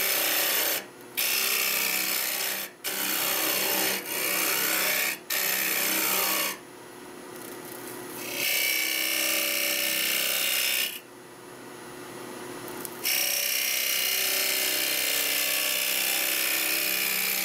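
A carbide-tipped Mate tool cutting into ash end grain on a running wood lathe, with a rough shearing noise as it undercuts. It makes five short cuts in the first six seconds, then two longer sweeps. Between the cuts only the lathe's steady running hum is left.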